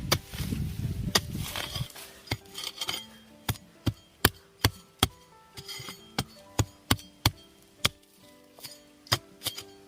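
A hoe chopping into hard soil while digging out bamboo shoots: sharp strikes at about two to three a second, starting about two seconds in after a low rumble. Soft background music plays under it.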